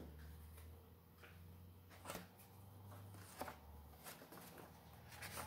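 Near silence with a few faint paper rustles and clicks from a printed instruction manual being handled, over a low steady hum.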